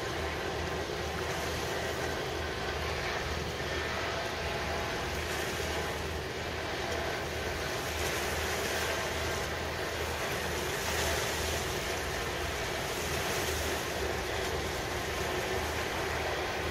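Steady harbour ambience: wind and choppy water, with a low, continuous rumble underneath.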